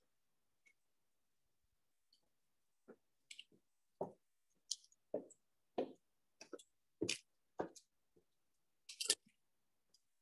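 Faint footsteps on a hard floor, a step roughly every half second to second, with silence between the steps.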